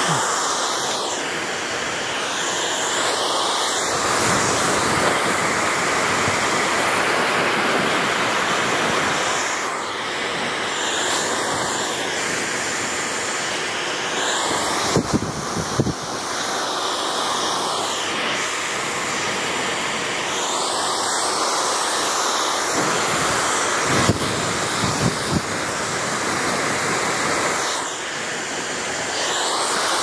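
Dyson hair dryer blowing steadily on hair, its rushing air swelling and fading every few seconds as it is moved around the head. A few small knocks from handling come around the middle.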